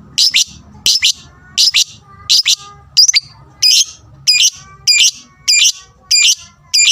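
Lovebird giving loud, sharp, high-pitched calls in a steady rhythm, one or two a second, some in quick pairs. This is the aggressive 'fighter' call that sets other lovebirds calling.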